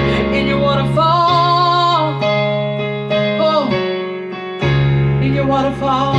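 Worship music on keyboard or electric piano, with sustained chords and a melody line.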